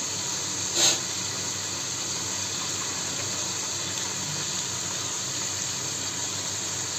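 Chicken and potatoes sizzling and simmering in oil in an aluminium cooking pot: a steady hiss, with one brief louder noise about a second in.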